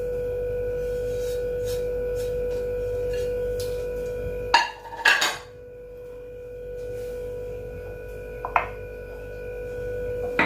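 A steady, even hum on one pitch runs throughout. About halfway through, a spoon clatters against a bowl in a quick cluster of clinks, and there are two light taps later, one near the end.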